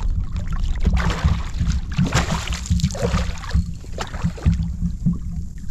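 Wind rumbling on the microphone, with water splashing and sloshing in short surges about once a second.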